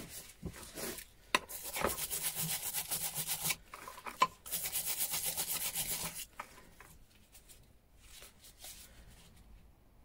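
Stiff-bristled scrub brush scrubbing a small adjustable wrench in a bowl of Deox-C rust-remover solution: two spells of rapid back-and-forth strokes of about two seconds each, with a sharp knock before each spell.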